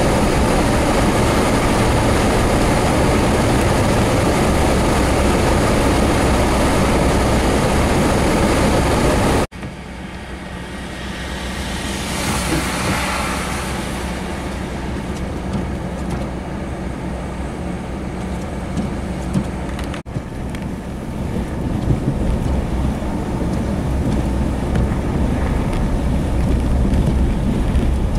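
Strong blizzard wind blowing on the microphone, mixed with road noise from passing traffic. The sound changes abruptly twice as the footage cuts. After the first cut, a single vehicle's tyre hiss swells and fades.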